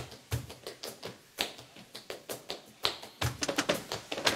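Flamenco palmas: sharp rhythmic handclaps with quick taps, sparse at first, then a dense, fast run about three seconds in.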